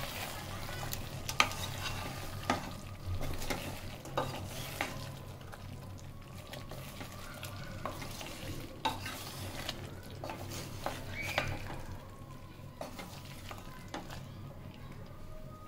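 Duck curry sizzling in a pot as it is stirred with a spatula, the spatula knocking and scraping against the pot at irregular moments.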